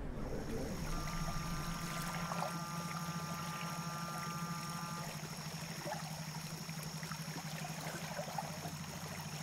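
Waterfront ambience: water lapping and trickling, under a steady low drone of boat engines and a steady high whine. A few soft steady tones sound from about one second in until about five seconds in.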